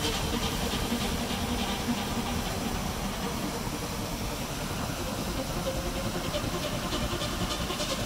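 Mountain stream water rushing: a steady, even hiss of flowing water with no break.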